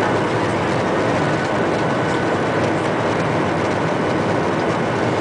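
Boeing 737-800's CFM56-7B jet engines running at low thrust, heard from inside the passenger cabin as a steady rush with a faint high whine while the airliner rolls slowly on the ground.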